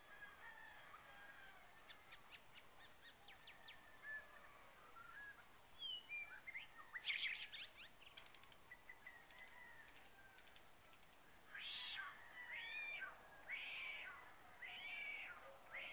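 Outdoor birdsong: scattered chirps and quick chirp runs, busiest about seven seconds in, then a string of repeated drawn-out calls about once a second in the last few seconds.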